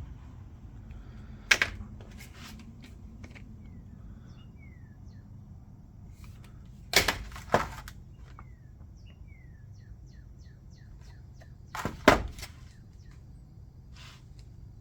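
Sharp clicks and knocks in three short clusters about five seconds apart, from the packaged screwdriver set being handled. Short falling bird chirps sound faintly between them.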